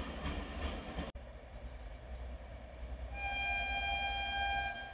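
Rumble of a train on the track that cuts off suddenly about a second in, then a locomotive's multi-tone air horn sounds once, held for about a second and a half.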